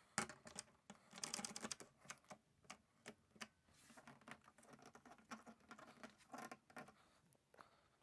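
Faint, scattered light scratches and clicks from small hand work, a little busier in the first two seconds.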